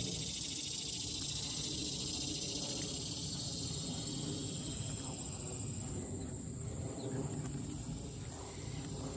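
Insects chirring outdoors: a steady high-pitched trill runs throughout, and a pulsing, lower-pitched chorus beneath it fades out about halfway through. A low rumble lies under them.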